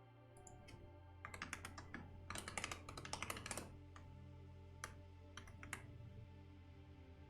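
Typing on a computer keyboard: a run of rapid keystrokes that thins out to a few single key presses, over soft ambient background music.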